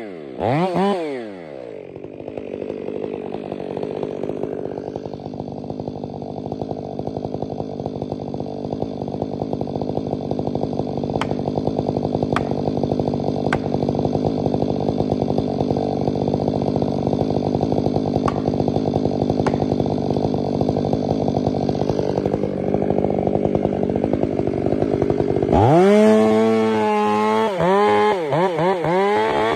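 Stihl 500 chainsaw comes off full throttle in the first two seconds and idles steadily for about twenty seconds, with a few sharp clicks in the middle. Near the end it revs back up to full throttle as the bar goes into the tree trunk for a bore cut.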